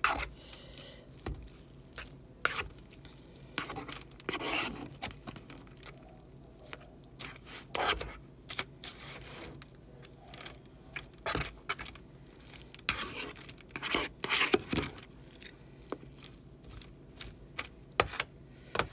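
Plastic fork stirring and scraping through microwave poutine fries in a plastic tray: irregular short scrapes and clicks every second or two, busier about two-thirds of the way through. The fries are still partly frozen.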